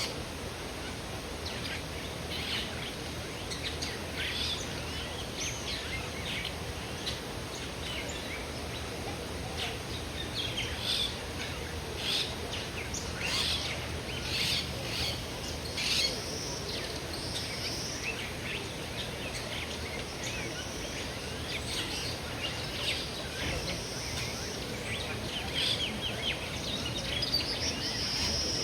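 Many caged birds chirping, with short overlapping calls throughout and a few brief high whistled notes later on, over a steady low background hum.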